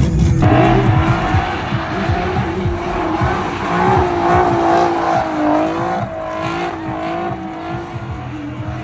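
A rear-drive sedan's tyres squealing in a long, warbling screech as the car slides in circles under power, starting abruptly about half a second in.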